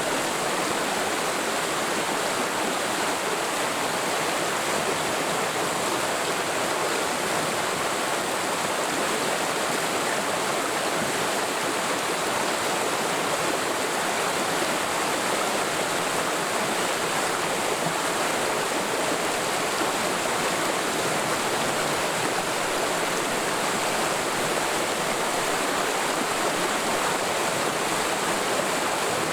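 Mountain stream in a forest valley, water flowing and rushing steadily over rocks without letup.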